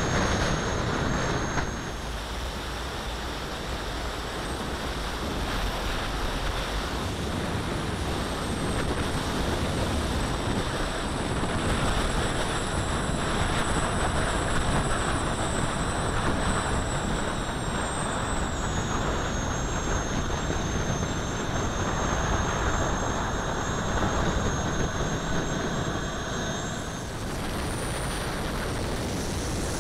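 Small model gas turbines (Jets Munt 160s) running, heard close from onboard: a high turbine whine over a steady rush of exhaust and air noise. The whine falls in pitch over several seconds past the middle and rises again near the end as the throttle changes.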